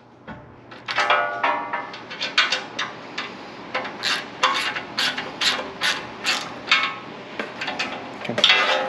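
Hand ratchet clicking as it drives the bolts that hold the roof rack's windscreen to the rack: a long, uneven run of sharp clicks, about two or three a second.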